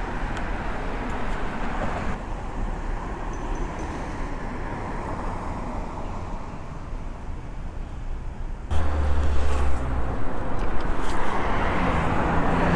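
Road traffic noise mixed with wind and rolling noise from a moving e-bike. About two seconds in the sound turns duller, and near nine seconds it jumps suddenly louder with a deep rumble.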